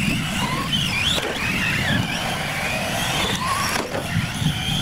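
Radio-controlled UTV trucks racing over loose gravel: their motors whine up and down with the throttle over the crunch of tyres on gravel, with a couple of sharp knocks near the end.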